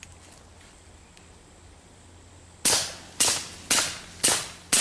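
Five suppressed .22LR pistol shots from a Walther P22 fitted with a Spectre II suppressor, firing Aguila SSS subsonic ammunition. The shots come in a quick even string about half a second apart, starting a little under three seconds in, each a short sharp crack that fades quickly.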